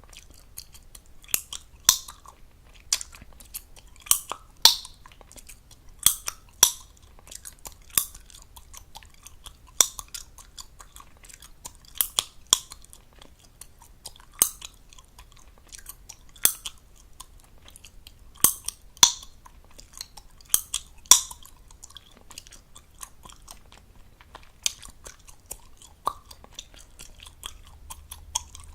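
Gum chewed fast with the mouth open close to the microphone: wet smacking with sharp pops every second or two and fainter clicks in between.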